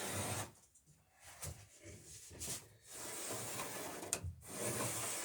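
Wood being handled, with scraping and rubbing in several stretches and a sharp knock about four seconds in.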